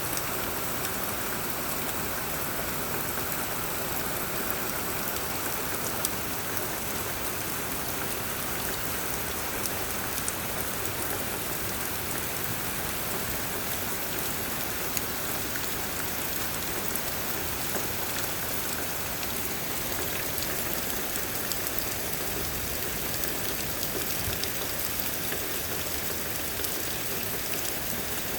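Heavy rain falling steadily on a roof, with a few sharper drop hits standing out.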